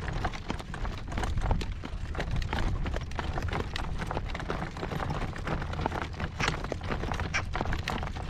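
Horse's hooves clip-clopping at a slow, steady trot in harness, over a continuous low rumble.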